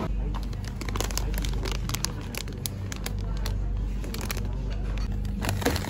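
Plastic product packaging crinkling and clicking irregularly as it is picked up and handled, over quiet background music and a steady low hum.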